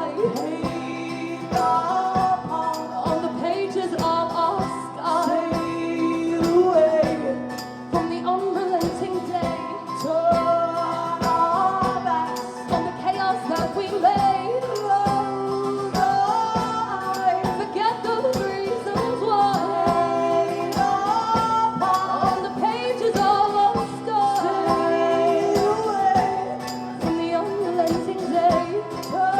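Live folk-rock performance: women singing over strummed acoustic guitars, with a steady beat.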